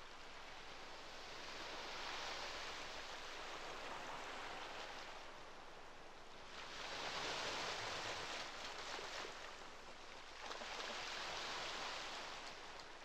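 Ocean waves washing onto a shore, the surf swelling and falling back three times a few seconds apart.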